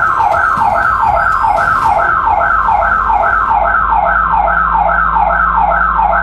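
Electronic security alarm siren sounding without a break. It is a loud, rapidly repeating falling tone, about two and a half sweeps a second.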